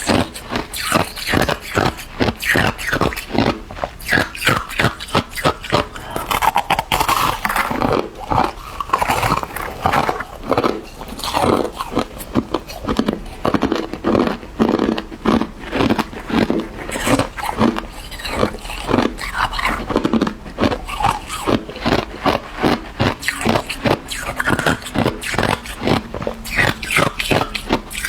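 Hard ice being bitten and chewed: a rapid, continuous run of loud crunches, about three or four a second.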